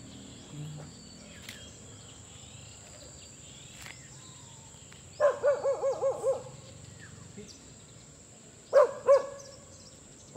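A dog barking: a quick run of about six barks about five seconds in, then two more near the end. Faint bird chirps sound in the background.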